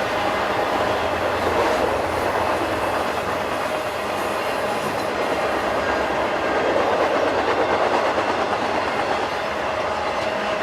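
BNSF freight train passing, its cars rolling by on the track with a steady rumble.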